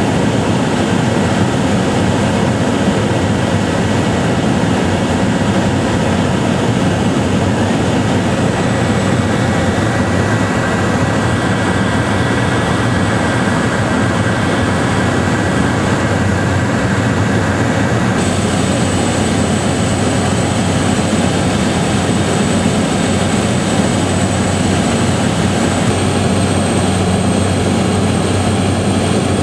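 Steady, loud engine drone with a rushing noise, carrying a few faint steady whines whose pitch shifts about eighteen and twenty-six seconds in.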